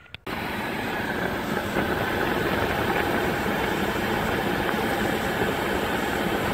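A 2016 Kia Soul's A/C blower pushing a steady rush of air out of a dashboard vent, with the engine idling beneath it. The air conditioning is running and blowing cold at the vent after the low-pressure suction line replacement. The sound cuts in suddenly just after a brief click.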